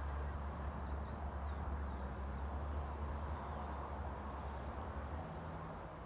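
A steady low rumble that fades out about five seconds in, with a few faint high bird chirps over it.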